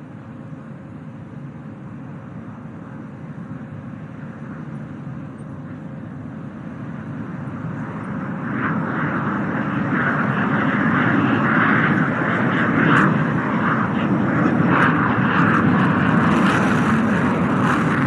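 JF-17 Thunder fighter's single turbofan jet engine, a steady jet rumble during a slow, nose-high high-alpha pass, growing much louder about halfway through as the jet comes closer.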